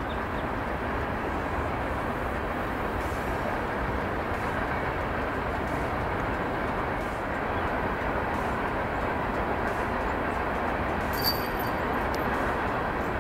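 Steady, even rushing noise outdoors, with no clear pitch, and one faint short click near the end.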